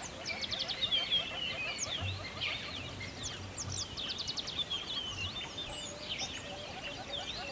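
Dense chorus of many songbirds singing at once: overlapping chirps, quick trills and sweeping whistled notes, over a steady run of short repeated lower notes.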